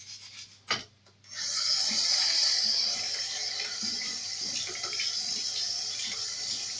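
A short knock, then a kitchen tap is turned on a little over a second in and water runs steadily into the sink.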